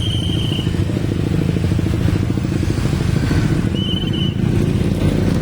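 A vehicle engine running steadily close by, a low, pulsing rumble, with two short high-pitched whistle-like tones, one at the start and one about four seconds in.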